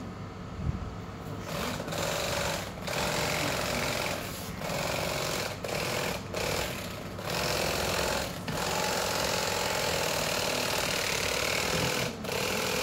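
Electric fillet knife buzzing as its reciprocating blades saw through a fish, with several brief stops as the cut is restarted.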